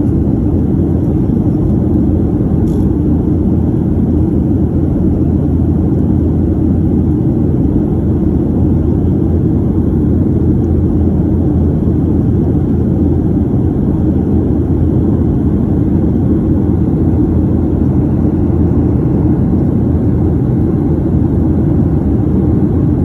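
Steady in-flight cabin noise of a Boeing 737 airliner: an even, low rumble of engines and rushing air heard from inside the cabin.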